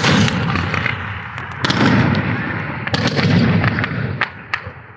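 Fireworks going off: three loud bangs, about a second and a half apart, each followed by rapid crackling, with the crackle dying away near the end.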